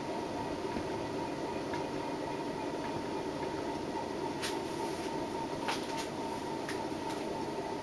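1981 Nadair spinner ceiling fan running steadily at its second-highest speed, about 140 RPM: an even hum with a few faint clicks in the second half.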